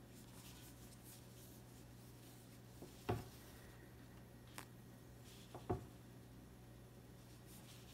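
Faint handling sounds of crocheting cotton yarn with a hook: light rubbing over a steady low room hum, with a few small knocks, the loudest about three seconds in and two more around five seconds.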